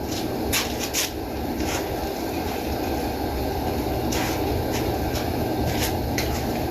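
Workshop machinery running steadily, a low rumble and hiss, with scattered light clicks.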